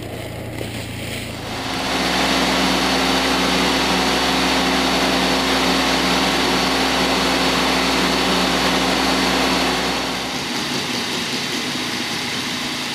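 Aerial work platform's motor running steadily with a steady hum, starting about a second and a half in and dropping away about ten seconds in.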